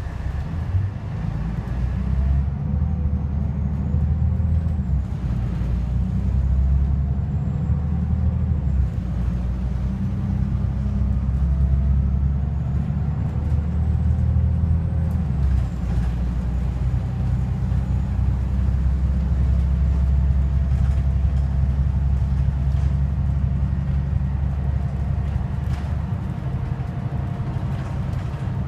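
Volvo double-decker bus with a Plaxton President body, heard from the upper deck while driving: a steady low engine and road rumble, with faint whines that rise and fall with its speed.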